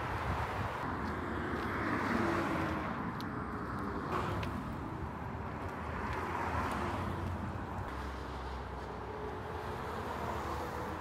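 Road traffic noise: a steady wash of passing cars that swells and fades every couple of seconds.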